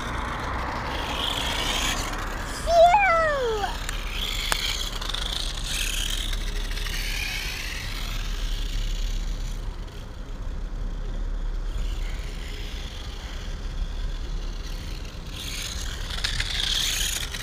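X-Rider CX3 1/10-scale RC motorcycle, its brushed electric motor and belt drive whining as it rides on asphalt. The whine swells and fades as the bike comes and goes and is loudest near the end as it closes in. A steady low rumble runs beneath it.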